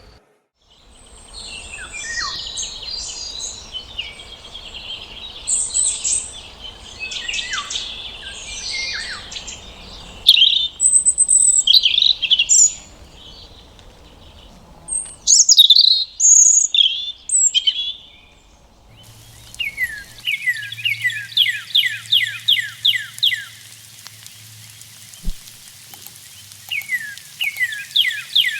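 Wild songbirds singing and chirping: several recordings joined one after another, changing abruptly about ten, fifteen and nineteen seconds in. In the last part a bird repeats phrases of quick downward-sliding whistled notes.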